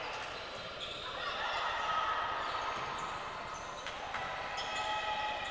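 Court sound of an indoor volleyball match in a large reverberant hall: a ball being struck a couple of times about four seconds in, with thin high squeaks and calls from the court over the hall's echoing hum.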